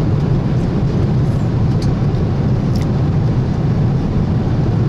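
Steady low drone of a jet airliner's cabin in flight, the even hum of engine and air noise, with a couple of faint clicks about two and three seconds in.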